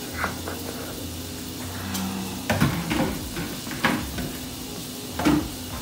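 Steady sizzling hiss of butter in a hot skillet, with a few light knocks and clatters from kitchen handling.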